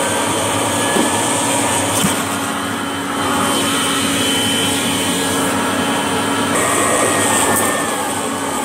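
Vacuum cleaner motor running steadily, with a fixed hum and whine and two brief knocks about one and two seconds in.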